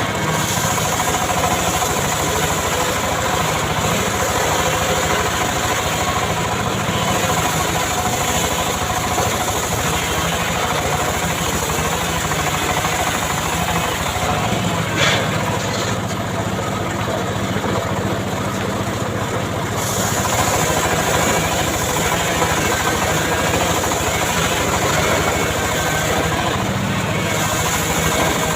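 Small engine of a homemade chainsaw running steadily, with one brief sharp click about halfway through.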